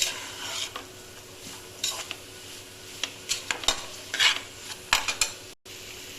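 A spoon stirring and scraping vegetables and spice powders in the pressure cooker's pan, with irregular scrapes and knocks over a light sizzle of frying. The sound cuts out briefly near the end.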